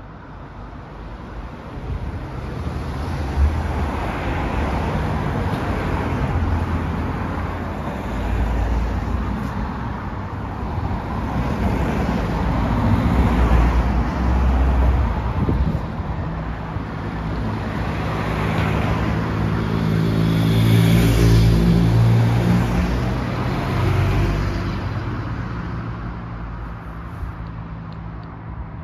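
Road traffic passing: several vehicles go by one after another, each swelling and fading, the loudest with a low engine hum about three-quarters of the way through.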